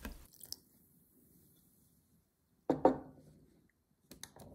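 Light clicks and knocks from a glass mixing bowl and kitchen utensils being handled. There are a few faint clicks at first, then one sharper knock with a short ring past the middle, and a few more clicks near the end.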